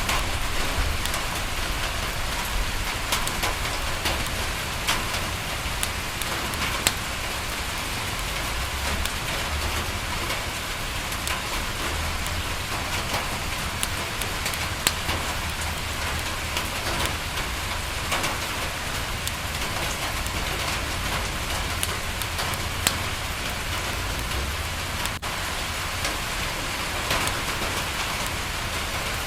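Steady rain falling against a window, with scattered sharp ticks and pops from drops and a crackling wood fire, over a low rumble.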